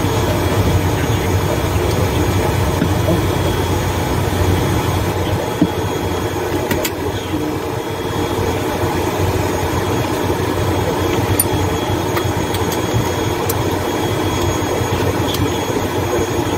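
Pratt & Whitney PW127M turboprop engine of an ATR 72-600 running at ground idle just after start, heard from inside the cockpit: a steady drone with a faint high whine, and a couple of light clicks near the middle.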